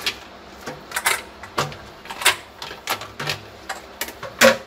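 Kitchen utensils and dishes clicking and knocking while chutney is served: about a dozen irregular sharp taps, the loudest near the end.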